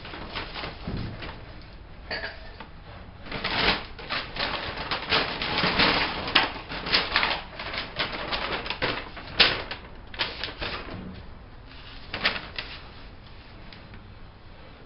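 Paper being handled: a dense run of crinkling and rustling that thins out after about ten seconds, with a few last crackles near the end.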